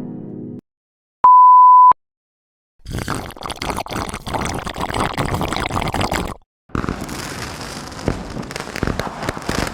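A string of editing sound effects: a falling run of tones ends, then a single steady high censor-style bleep sounds for under a second. Two stretches of dense, crackling noise follow, the first about three and a half seconds long, the second about three seconds after a brief break.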